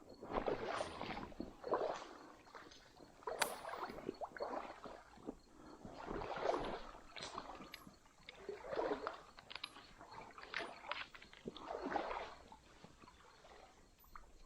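Water sloshing and splashing in repeated, uneven strokes about once a second, with one sharp click about three and a half seconds in.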